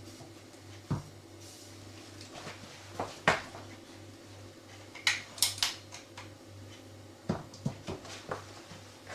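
Clicks and knocks from handling an air rifle fitted with a tissue-wrapped silencer: a few separate sharp clicks, the loudest about three seconds in, a quick cluster of crisp ticks about five seconds in, and several lighter knocks near the end.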